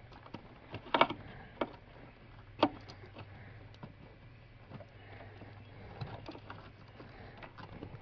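Hands pulling a car's under-dash wiring harness and relays loose: scattered clicks and knocks of plastic connectors and relay housings, two louder ones about a second in and at about two and a half seconds, over a low steady hum.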